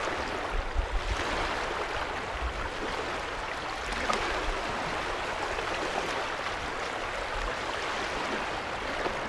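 Waves washing steadily on a stony shore, with occasional low rumbles of wind on the microphone.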